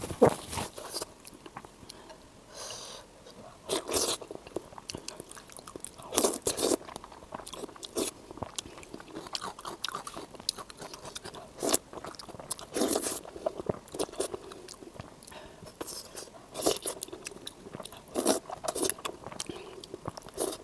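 Close-miked eating: crisp, crunchy bites every second or two with softer chewing in between.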